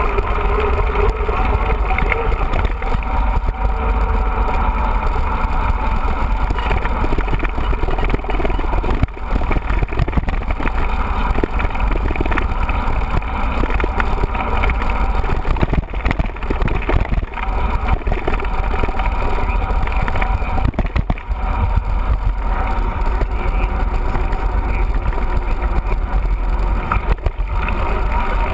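Steady, loud wind rumble buffeting the camera microphone as a mountain bike is ridden along at speed.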